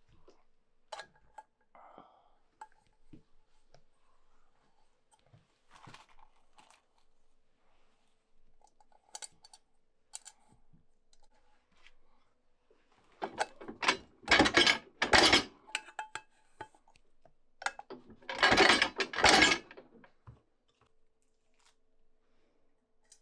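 Riveting a handle fitting onto a copper pan on a hand-lever press. Light clicks and clinks of metal parts being set in place come first. Then two loud clusters of metal-on-metal strikes follow, each lasting two to three seconds, about four seconds apart.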